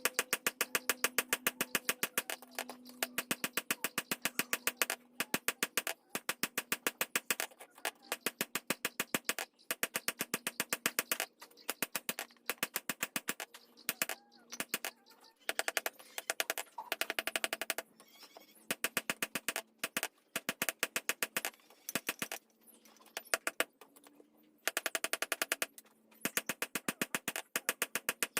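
Rapid, regular hammer blows on steel being forged, several strikes a second, in runs of a few seconds broken by short pauses.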